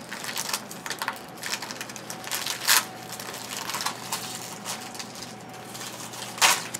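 Crinkling and rustling of a trading card pack being opened and its cards handled, as scattered crackles, with a couple of louder rustles about three seconds in and near the end.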